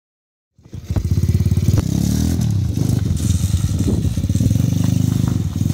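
Honda ATC70 three-wheeler's small single-cylinder four-stroke engine running as it is ridden, its revs rising and falling a little. It comes in sharply about half a second in.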